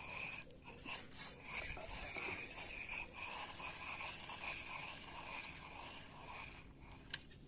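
A spinning fishing reel being cranked to retrieve a lure: a faint, steady whirr with rhythmic ticking from the turning handle. The cranking stops about six and a half seconds in, and a single sharp click follows.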